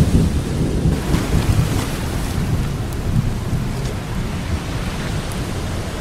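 Steady rushing water noise over a continuous deep rumble, with a few faint drip-like ticks.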